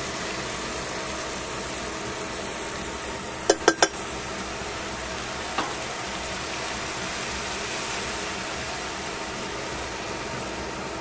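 Bean sprouts and vegetables sizzling steadily in a stainless steel pan. About three and a half seconds in, the tongs clack against the pan three times in quick succession, and once more about two seconds later.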